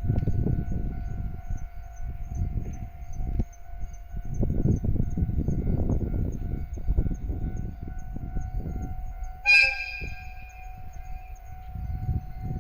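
Japanese level-crossing warning alarm ringing steadily, its tone repeating about three times a second, over low rumbling from a passing train. About nine and a half seconds in, the DE10 diesel locomotive gives one short blast of its horn, which fades over a second or so.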